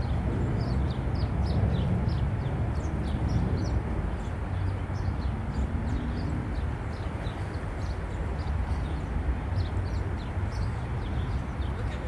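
Small birds chirping over and over in short, high, falling notes, several a second, above a steady low rumble that is the loudest sound.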